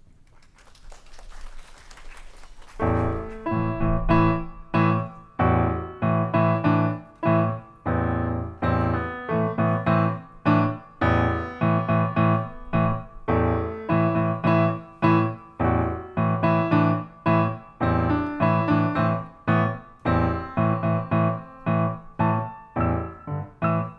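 Piano played in steady, rhythmic chords, beginning about three seconds in after a short rush of noise.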